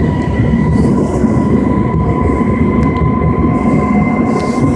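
Madrid Metro series 5200 train running, a loud steady rumble with a high whine held at one pitch throughout.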